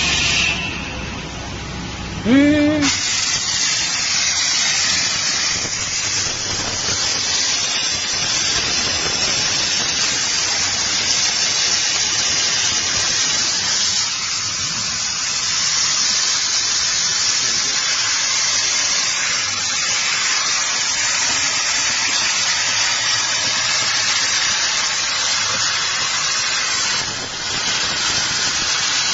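Laser cutting machine at work: a brief rising tone, then a steady high hiss sets in about three seconds in and holds evenly.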